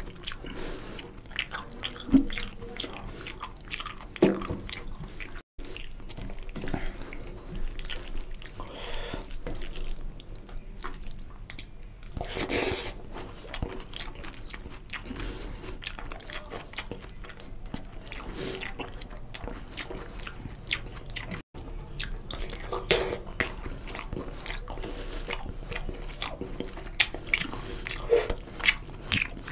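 Close-miked eating sounds: fingers squishing and mixing rice into wet curry gravy on a metal plate, with wet chewing and mouth clicks. The sound cuts out briefly twice.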